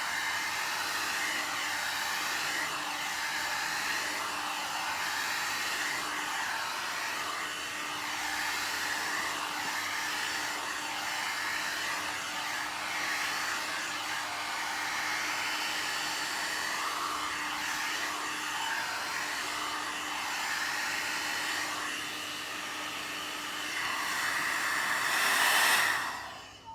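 One-step hot-air blow dryer brush running steadily while it is worked through type 4 natural hair to stretch it. It gets louder for a moment just before it stops at the very end.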